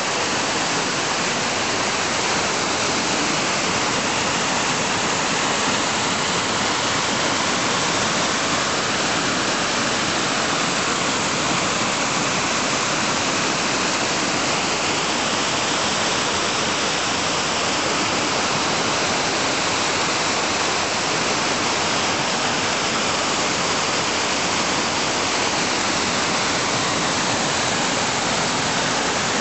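Creek water rushing over rocks in white-water cascades, running with fresh rainwater: a steady, unbroken rush.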